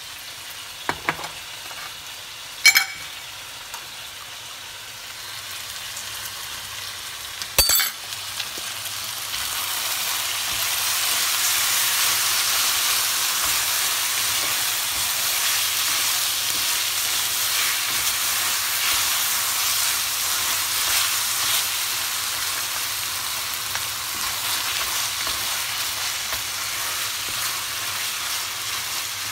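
Chicken pieces frying in a stainless steel pan with onion, sizzling steadily as a wooden spoon stirs them; the sizzle swells about ten seconds in and holds. Two sharp knocks come before it, about three and eight seconds in.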